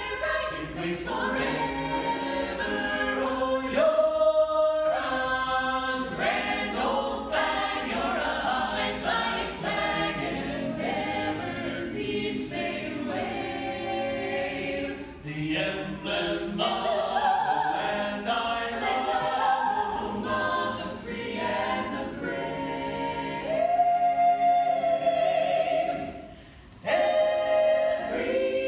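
A cappella vocal ensemble of mixed men's and women's voices singing in harmony, with no instruments. The singing breaks off briefly about two seconds before the end, then resumes.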